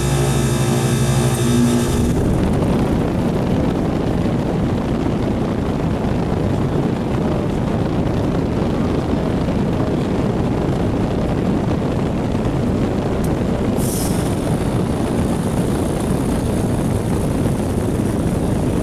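Heat pump outdoor unit running in forced defrost: a steady mechanical noise, with a hum of steady tones that drops away after about two seconds. A brief hiss sounds near the end.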